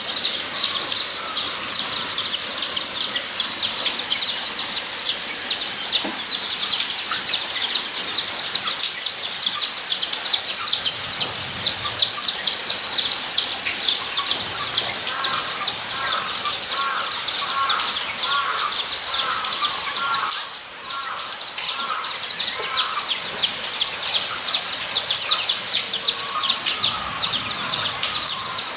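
Guinea pigs squeaking: a dense, unbroken run of short high squeaks, several a second, with a lower series of calls joining in the middle.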